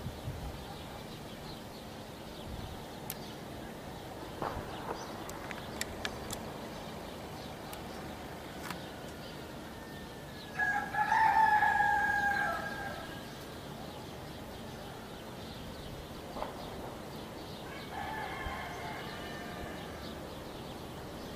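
A rooster crows loudly about halfway through, and a fainter crow follows near the end. Scattered sharp cracks of distant gunfire from armed clashes sound throughout.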